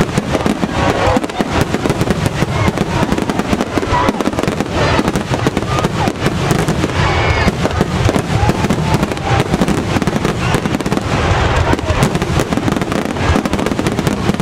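Aerial fireworks shells bursting in rapid, overlapping succession, a dense continuous run of bangs and crackling with no break.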